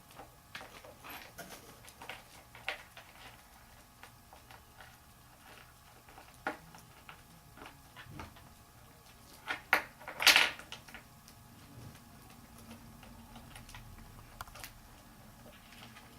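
Cockatiels playing: scattered light taps, clicks and scratches, with a short run of louder sharp clatter about ten seconds in.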